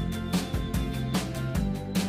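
Background music with a steady beat, about two to three beats a second, over sustained instrumental notes.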